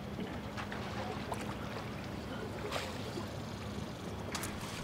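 Quiet outdoor pool ambience: a steady background hiss with a faint low hum and gentle water sounds. Two brief sharp noises come about two and a half seconds in and again near the end.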